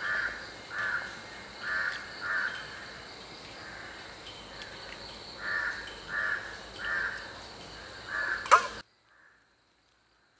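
A crow cawing repeatedly, in runs of calls about half a second apart, with a pause in the middle. Near the end there is a sharp knock, and the sound then cuts off abruptly to near silence.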